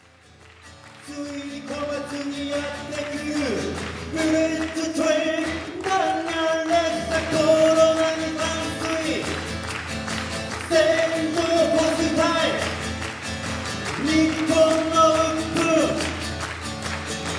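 A man singing a Japanese song to acoustic guitar, fading in over the first couple of seconds.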